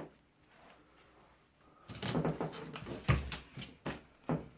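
Clicks, rattling and a few separate knocks of fan parts and tools being handled during a teardown. The busiest rattling comes about two to three seconds in.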